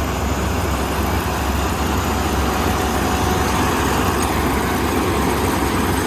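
Kubota combine harvester's diesel engine running steadily under load with its harvesting machinery, a continuous deep drone while it cuts rice.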